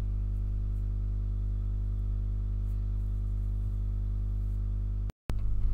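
A steady low hum with evenly spaced overtones, unchanging in pitch and level. It cuts out completely for a moment about five seconds in and then resumes.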